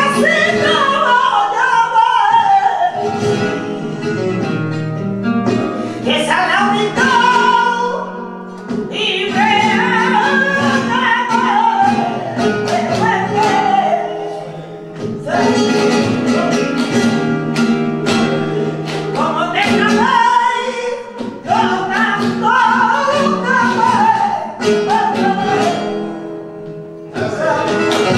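Flamenco cante por bulerías por soleá: a woman sings long, ornamented phrases with short breaks between them, over a flamenco guitar, with palmas clapped in rhythm.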